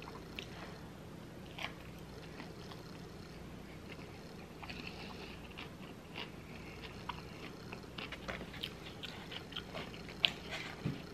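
Close-up chewing and biting on a deep-fried, crab-and-cream-cheese-stuffed jalapeño, with short wet mouth clicks and crunches. The clicks come thicker in the last few seconds, with one sharp click a little before the end.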